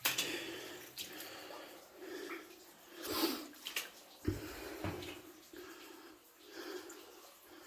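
Water splashing and sloshing in a flooded mine passage, in uneven bouts with a louder splash about three seconds in. A few sharp knocks come a second or so later.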